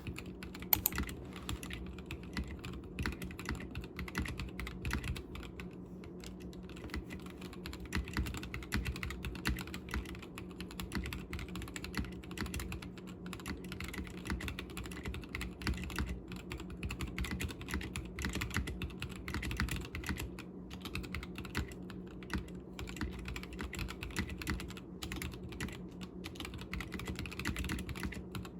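Typing on an Akko Sakura Jelly 3087 mechanical keyboard, in its stacked acrylic case with stock Gateron Pink 43 g switches: a continuous, fast patter of key clacks. A faint steady low hum runs underneath.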